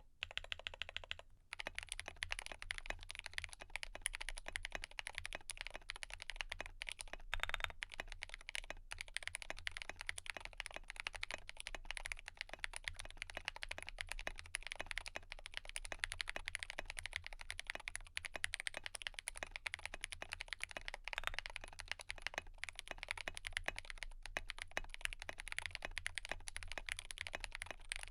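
Continuous fast typing on a GMMK Pro mechanical keyboard: a dense stream of keystroke clacks, many a second.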